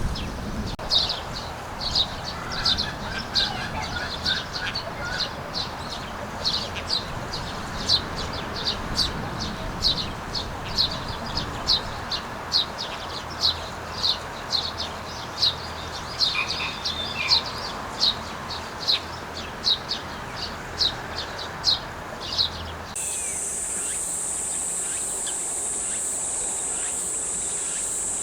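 Oriental dollarbird calling over and over, short sharp notes at about one and a half a second. About 23 seconds in the calls stop abruptly and a steady high-pitched hiss takes over.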